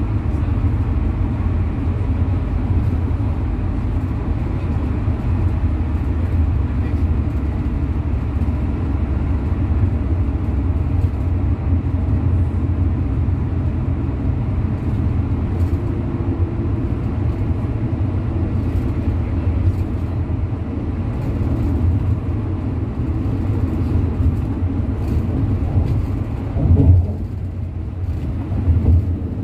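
Steady low road and engine rumble of a road vehicle at highway speed, heard from inside the cabin. A brief louder thump comes about 27 seconds in.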